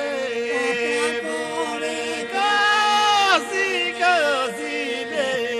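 Albanian folk song: a voice sings a wavering, ornamented melody over a steady held drone note.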